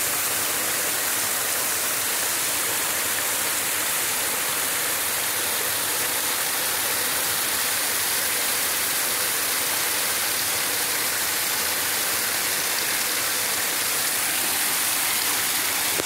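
Waterfall rushing steadily: an even, unbroken hiss of falling water that holds the same level throughout.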